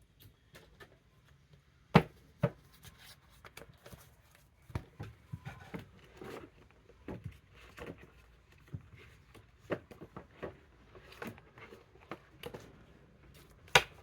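Irregular taps and clicks of tarot cards being handled and set down on a table, with a sharp knock about two seconds in and another near the end.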